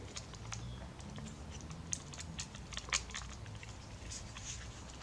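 Scattered faint clicks and taps of small plastic camcorder parts being handled and pressed into place, the sharpest about two and three seconds in.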